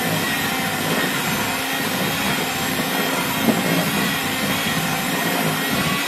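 Electric hand mixer running at a steady speed, its beaters working through thick browned-butter icing in a glass bowl.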